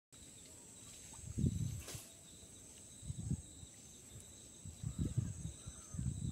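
Steady high-pitched insect buzzing, with low rumbling bumps four times and a single sharp click about two seconds in.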